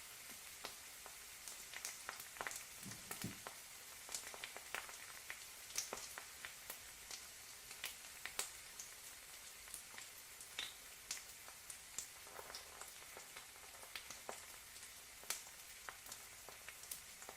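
Egg frying in a pan: a faint, steady sizzle with many small crackling pops at irregular moments.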